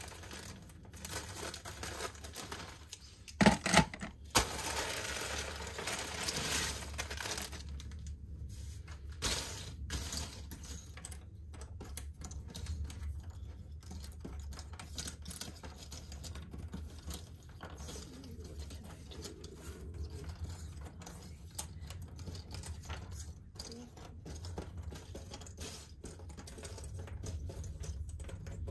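Cardboard jigsaw puzzle pieces clicking and rustling as they are handled on a tabletop, many small taps throughout and a louder clatter about three and a half seconds in. A steady low hum runs underneath.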